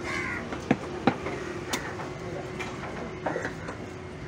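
Heavy knife chopping through fish on a wooden log block: a few sharp knocks, the loudest two close together about a second in.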